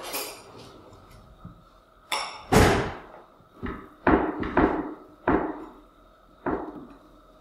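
Table knife spreading butter on a slice of crusty dark rye bread on a wooden board: about five short scraping strokes in the second half. Before them, about two seconds in, come two loud sharp knocks.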